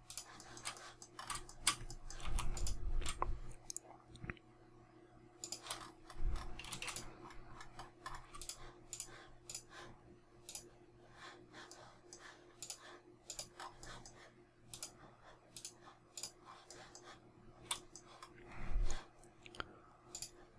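Irregular computer mouse clicks and keyboard key presses over a faint steady electrical hum, with a few dull low thumps, the loudest about two to three seconds in.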